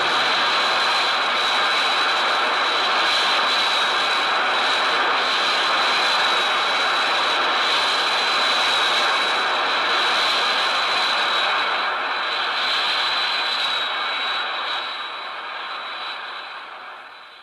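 Showa-era MechaGodzilla sound effect: a steady jet-like roar with a high whine held on top, fading away over the last several seconds.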